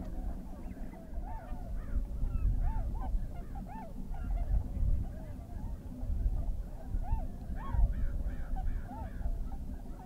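A large flock of tundra swans calling: many short rising-and-falling whoops overlapping throughout, with a low rumble underneath.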